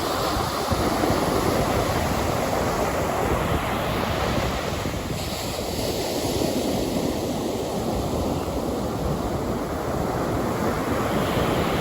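Ocean surf: a steady rush of waves that swells and eases, with wind buffeting the microphone.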